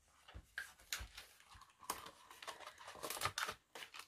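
Plastic packaging of a rubber stamp set crinkling and clicking in irregular small bursts as it is opened by hand and the stamps are slid out.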